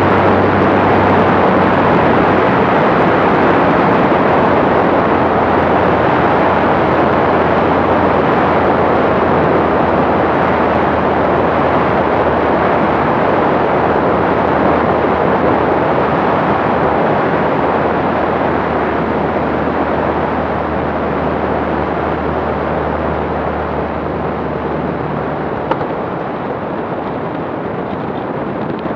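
The Maule M7-260 amphibian's engine and propeller run steadily on the descent to a water landing, under heavy wind rush on an outside-mounted microphone. The noise eases off slowly, and the engine's low drone drops away near the end as the plane settles toward the water.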